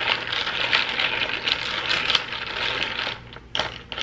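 A long stirrer clinking rapidly against the inside of a glass tumbler and the ice cubes in a milky drink, a dense run of clinks that breaks off about three seconds in, followed by a couple of separate clinks.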